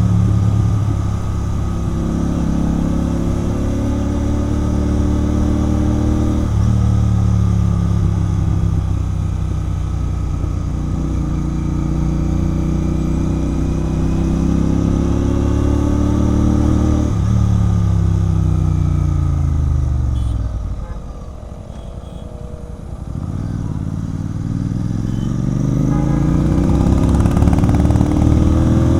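Royal Enfield Continental GT 650's parallel-twin engine through a Red Rooster aftermarket exhaust, riding on the road. The engine note climbs, drops sharply and climbs again about six seconds in, and does the same at about seventeen seconds. The revs then fall away to a quieter lull a little past the twenty-second mark and build again as it accelerates.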